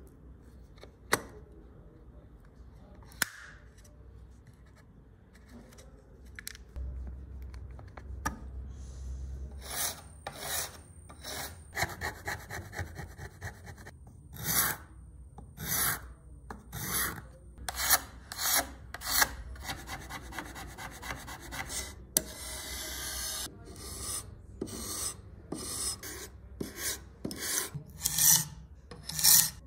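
A few isolated clicks, then from about a third of the way in, repeated rasping strokes of a hand tool rubbed back and forth across a surface as in hand filing or sanding, about one stroke a second in an uneven rhythm.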